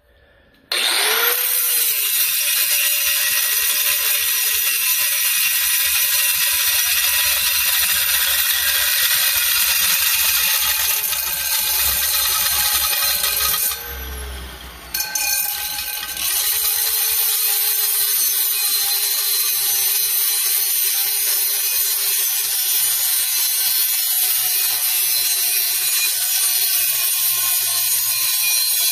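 Angle grinder with a cutting disc starting up about a second in and cutting into a steel yard-tractor rim: a steady high whine over a grinding hiss, the motor's pitch dipping now and then as the disc bites. It eases off for a couple of seconds about 14 seconds in, then cuts on.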